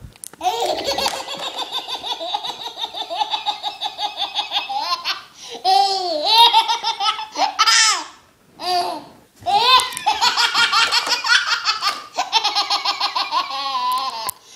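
A baby laughing hysterically in long runs of rapid, high-pitched belly laughs. A few rising-and-falling squeals come in the middle, and there are short breaks for breath.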